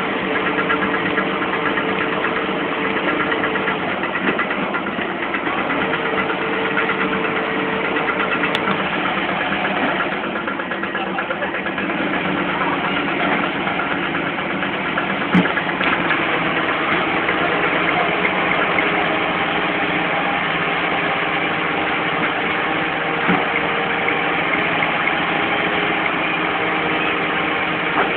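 Diesel engines of Komatsu heavy earthmoving machines, an excavator and a bulldozer, running steadily at idle. A sharp click is heard about halfway through.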